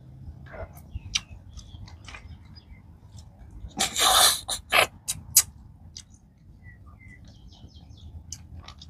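Sucking snail meat out of freshwater snail shells: one loud slurp about four seconds in, then a few sharp sucking smacks, with small mouth clicks and chewing between them.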